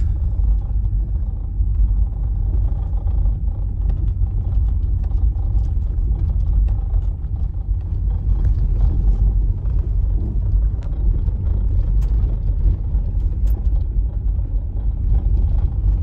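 Steady low rumble of a car rolling slowly over an unpaved gravel road, heard from inside the cabin, with faint scattered ticks from the tyres on the gravel.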